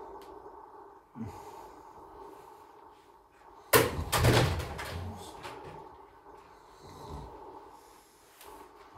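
A sharp knock or thump about four seconds in, followed by a second or so of rustling and shuffling, over a steady low hum.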